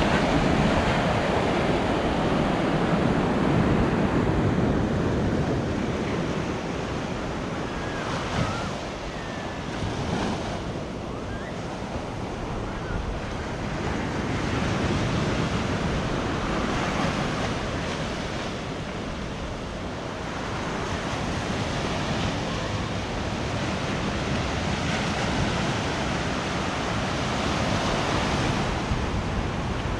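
Ocean surf breaking and washing up a sandy beach, the wash swelling and easing every several seconds, with wind buffeting the microphone.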